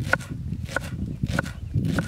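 A kitchen knife chopping a red onion on a wooden cutting board: the blade knocks on the board at an even pace, a little under two knocks a second, each with a short ring.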